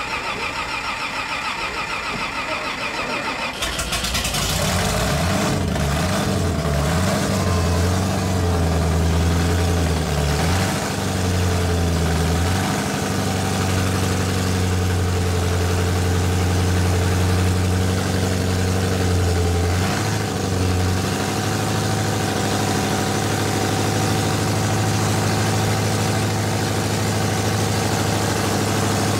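Supercharged nitro-burning engine of a nostalgia drag roadster being started: a starter whirs for about four seconds, then the engine fires. It revs up and down unevenly for several seconds, then settles into a steady, loud cackling idle.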